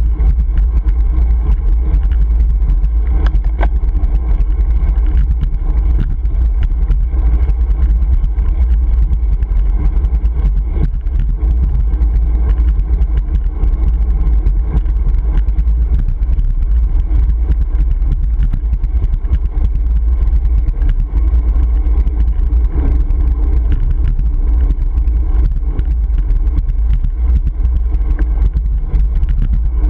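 Wind buffeting a GoPro Hero 3's microphone while riding a road bicycle: a steady, loud low rumble, with scattered small clicks through it.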